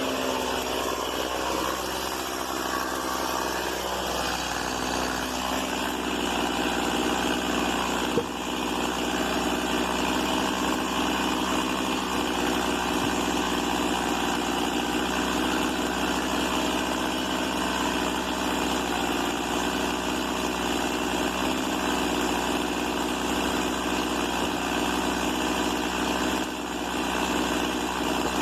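Stihl MS 170 two-stroke chainsaw engine running steadily, with one sharp knock about eight seconds in.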